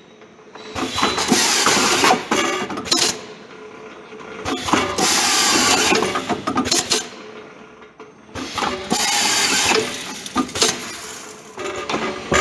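Artikon SD-206 automatic double-head screwdriving machine running through its working cycles: four or five bursts of mechanical clatter and hiss, each one to two seconds long, with quieter gaps between.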